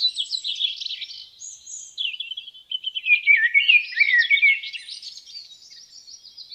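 Forest songbirds chirping and singing, several birds overlapping in quick high warbles and tweets, busiest in the middle and thinning toward the end.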